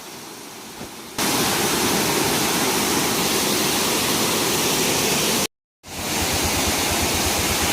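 Small waterfall rushing, running full after rain: a steady rush of falling water that gets much louder about a second in, cuts out for a moment past halfway, then comes back.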